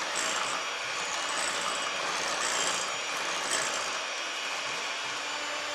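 Electric hand mixer running steadily, its beaters whisking eggs and sugar in a glass bowl, beating them until the sugar dissolves and the eggs turn frothy.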